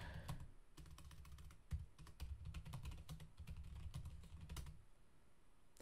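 Faint computer keyboard typing: a quick run of key clicks that stops about a second before the end.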